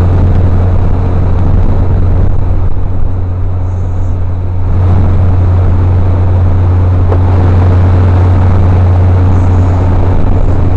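15 hp Mercury outboard motor running steadily, pushing a Valco aluminium boat along the river, with a constant low engine drone and rushing noise.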